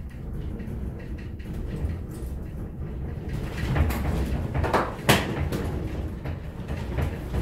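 Office building shaking in an earthquake: a steady low rumble with creaks and rattles of furniture and fittings, growing louder a little past halfway, with a sharp knock about five seconds in.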